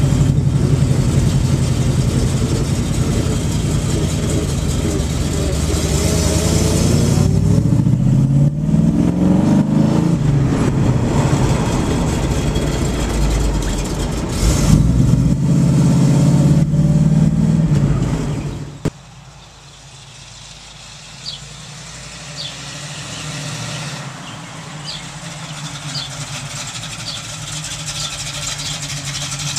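1967 Chevrolet Camaro SS convertible's V8 engine running loud while driving, heard from the open car, its pitch rising twice as it accelerates. About two-thirds of the way in it drops suddenly to a quieter engine sound heard from outside the car, growing louder as the car approaches.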